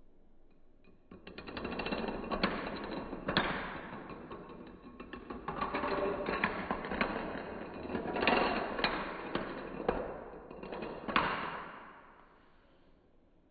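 A long chain of standing dominoes toppling one into the next on a wooden floor: a rapid clatter of small clicks that starts about a second in, swells and eases several times with single louder clacks, and dies away near the end.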